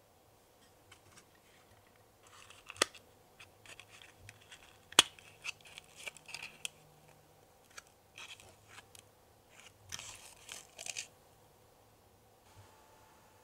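A tiny folded paperboard box is handled and opened by hand. Its card flaps and handle tabs rustle and scrape in several short bursts, with two sharp clicks about three and five seconds in, the second the loudest.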